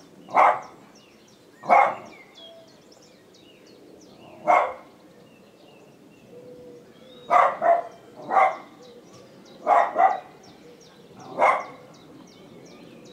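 A dog barking, about nine barks at irregular gaps, some single and some in quick pairs.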